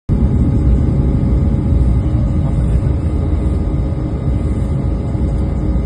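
Steady low rumble of an airliner heard from inside the cabin, with a faint steady hum above it.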